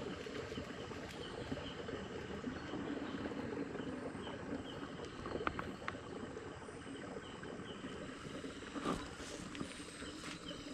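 Wet outdoor ambience: a steady rushing noise with a short chirping call repeated about twice a second and a thin, high insect whine. A few sharp clicks come about halfway through, and a dull thud near the end.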